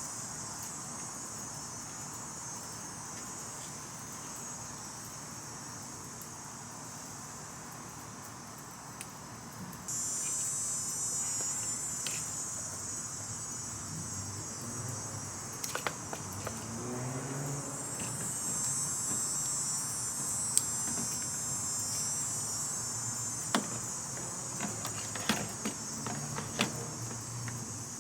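Steady high-pitched chirring of an insect chorus, growing louder about a third of the way in. Several sharp clicks and knocks come in the second half.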